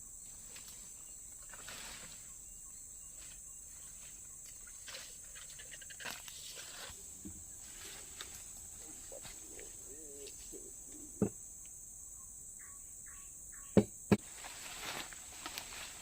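Steady high-pitched insect chorus, with scattered faint rustles and a few sharp knocks: one about eleven seconds in and two close together near the end.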